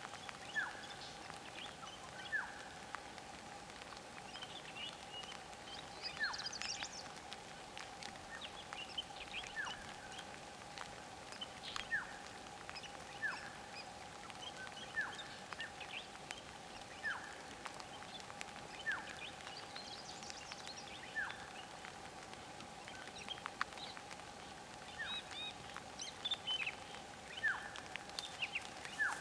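Birds calling in the bush: a short falling call repeated every second or two, with scattered higher chirps, over a steady faint high-pitched hum.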